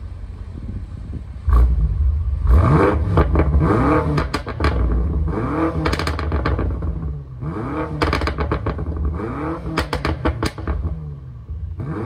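BMW M5 F90's twin-turbo 4.4-litre V8 exhaust, revved repeatedly from idle, about a second and a half in and then several more times, each rev sweeping up and falling back. Sharp crackles come in between the revs.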